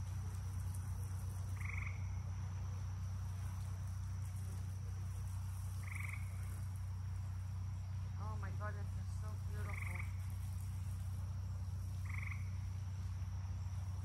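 Frogs croaking at night, a short call every two to four seconds, with a brief burst of warbling calls about eight seconds in, over a steady low hum.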